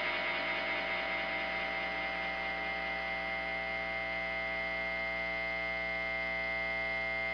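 Steady electric hum and buzz with several held high tones, the amplifier hum and feedback left ringing as a noise-punk track ends. It holds level and pitch without change.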